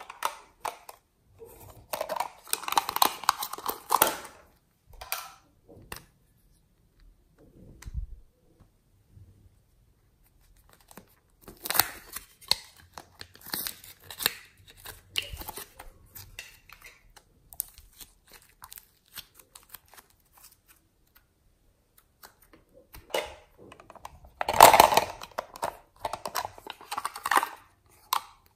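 Small plastic containers and cosmetic packaging being handled and opened: crackly rustling and clicks in separate bursts, the loudest near the end.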